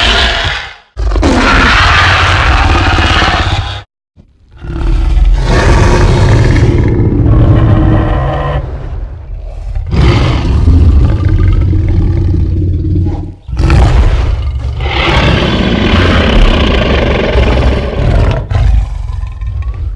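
Film-style dinosaur roar sound effects: a run of loud, long roars with a deep rumble beneath them, one after another with brief breaks between.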